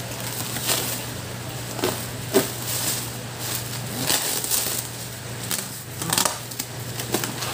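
Plastic stretch wrap around a cardboard box being slit with a utility knife and pulled away, in irregular short bursts. Near the end the blade cuts along the packing tape on the cardboard.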